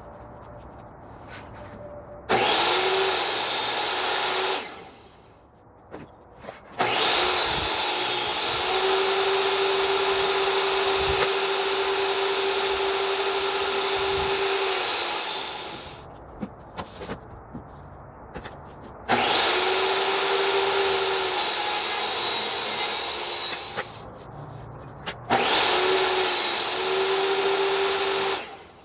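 Electric power tool working maple, run four times with a steady motor whine that spins up at each start; the longest run lasts about nine seconds. Small knocks and handling sounds fill the gaps.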